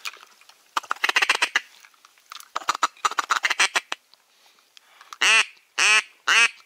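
Duck quacking: two runs of rapid chattering quacks, then three loud, drawn-out quacks falling in pitch near the end. A shotgun shot goes off at the very end.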